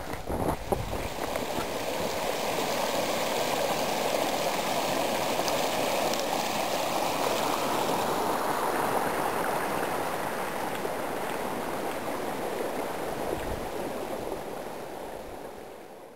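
A brook running: a steady rush of water that fades out near the end. A few crunching footsteps in snow in the first second.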